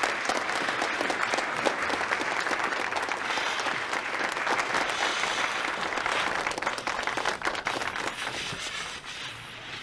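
Audience applauding, a dense patter of many people clapping that thins out near the end.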